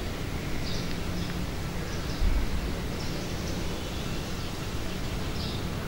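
Steady outdoor background noise with a few short, faint high chirps and a soft low thump a little over two seconds in.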